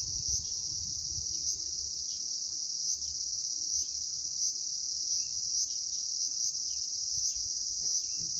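Summer cicadas buzzing in a steady, shrill, unbroken drone. There is a low rumble in the first second or so.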